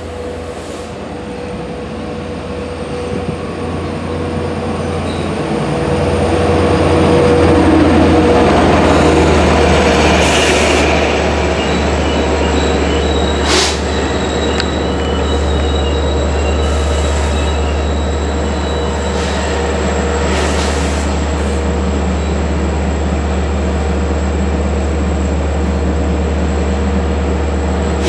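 Long Island Rail Road diesel commuter train, growing louder over the first several seconds and then holding steady, with a continuous low drone and thin high squealing tones. A single sharp click comes about halfway through.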